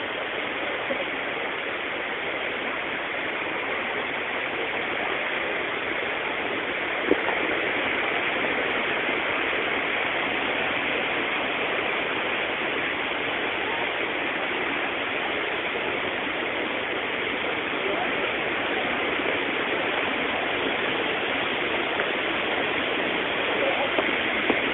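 Shiraito Falls' spring water pouring from between layers of volcanic rock: a steady rushing roar that grows a little louder over the first several seconds. A single sharp click about seven seconds in.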